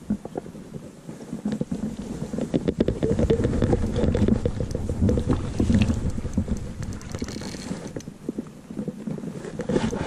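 Wind buffeting and rustling handling noise on a body-worn camera's microphone, with many small clicks scattered through it, heaviest in the middle.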